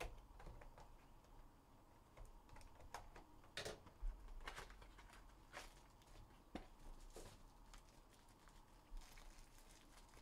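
Faint handling of a trading-card box and its foil packs: scattered soft clicks and taps of cardboard, with a light crinkle of a foil wrapper near the end.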